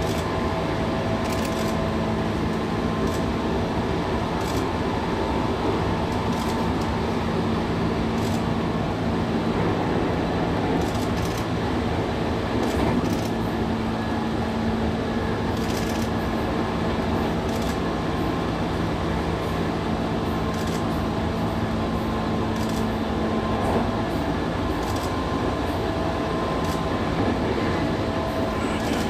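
Running noise of a JR West 221 series electric train at speed, heard from on board: a steady rumble with a constant hum and scattered sharp clicks from the track.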